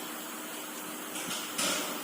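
Pneumatic uPVC welding machine in a workshop: a steady faint hiss and hum, with a short burst of released air about one and a half seconds in.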